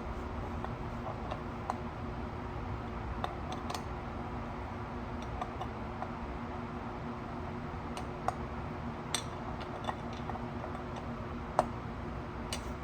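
Scattered light clicks and taps of hand tools and metal engine parts being handled during cylinder and gasket assembly, about eight in all and irregularly spaced, over a steady low hum.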